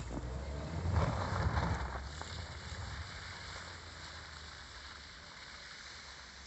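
Kia Sportage SUV driving off through snow, its engine and tyres in the slush heard as a low rumble. The sound is loudest about a second in, then fades steadily as the car pulls away.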